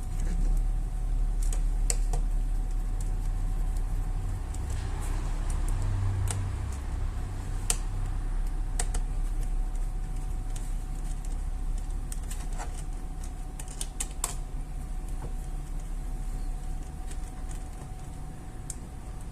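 Scattered light clicks and taps, a few at a time, over a steady low hum and a faint steady tone.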